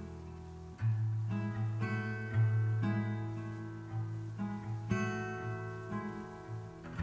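Background music: an acoustic guitar playing, picked and strummed notes ringing one after another.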